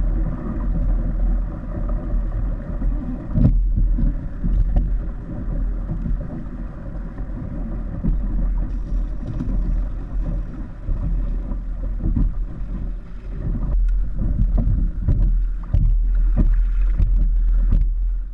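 Wind buffeting the microphone and water rushing past a kite-towed kayak: a heavy, steady low rumble with irregular gusts and occasional knocks.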